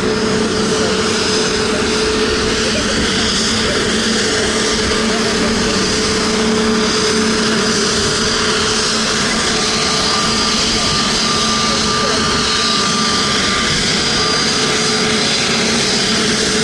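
Airbus A320neo-family jet's turbofan engines running as the airliner turns at the runway end before takeoff: a steady, loud rush with a held drone. A higher whine joins for a few seconds about ten seconds in.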